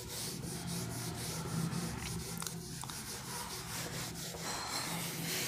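Quick, repeated rubbing and scratching strokes on a surface, over a low steady hum.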